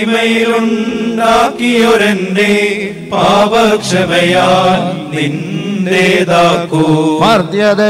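Slow Malayalam Orthodox funeral hymn chanted by voices, with a wavering, ornamented melody over a steady held low note.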